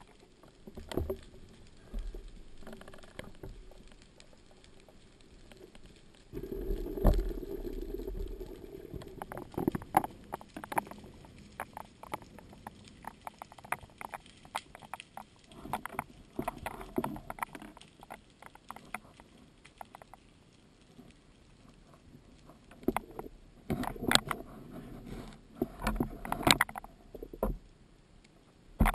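Underwater sound picked up by a camera on a speargun during a breath-hold spearfishing dive: irregular clicks and knocks throughout, with a steadier low rush from about six to nine seconds in and denser clusters of clicks near the end.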